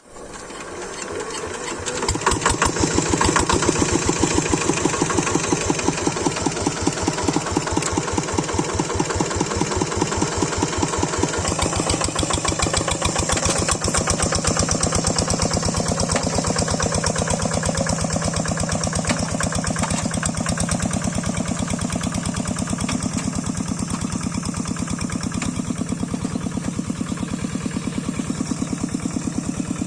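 Single-cylinder diesel engine of a Quick two-wheel rice-field tractor running steadily, with an even, rapid beat of firing strokes. It swells up over the first two seconds, then holds steady.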